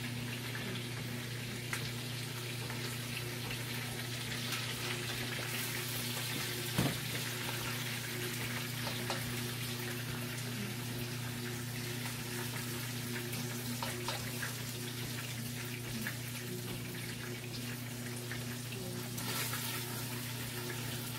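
Chicken fat sizzling steadily in a stovetop pot, over a steady low hum, with a single sharp knock about seven seconds in.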